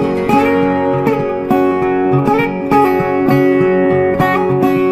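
Acoustic guitar music, strummed and picked, in a steady rhythm.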